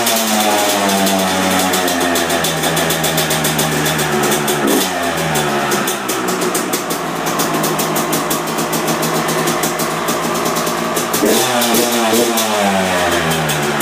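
Yamaha YZ two-stroke dirt bike engine running on a stand and being revved: it holds a lower steady speed for the first few seconds, climbs to high revs for several seconds, drops back near the end, then is revved up again.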